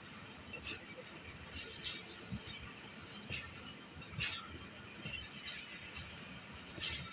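Passenger train coach in motion: low running noise with irregular sharp metallic clinks and rattles, about seven in a few seconds.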